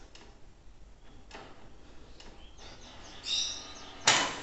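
Canon inkjet printer's mechanism working on a print job: a few faint clicks, a short high whine about three seconds in, then a loud short burst of mechanical noise near the end.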